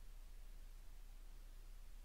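Near silence: a faint, steady low hum under a light hiss.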